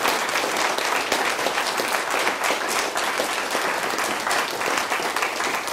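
Audience applauding: steady, dense clapping from a large seated crowd, in thanks at the end of a talk.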